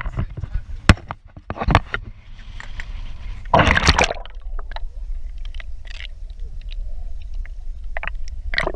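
Water splashing beside a small boat, with one big splash about three and a half seconds in and a sharp knock about a second in, over a steady low rumble of wind on the microphone.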